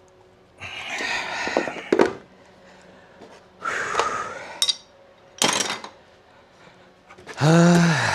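Metal tools and engine parts being handled, with bursts of rustling and sharp clinks, then a short groan near the end.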